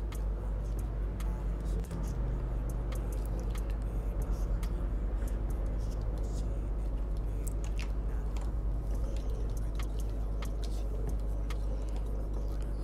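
A steady low hum and background noise, with scattered light clicks from working a computer's keyboard and mouse.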